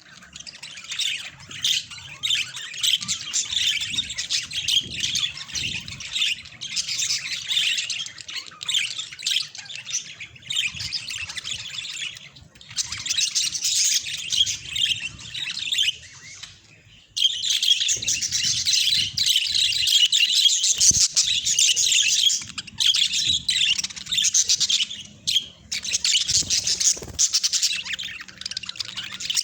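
Budgerigars chattering and chirping in a dense, continuous stream of rapid chirps, with a brief lull a little past halfway.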